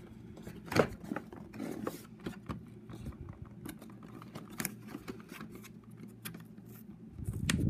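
Clear plastic toy packaging being handled and pried open: scattered sharp clicks, crinkles and taps of the thin plastic and cardboard box.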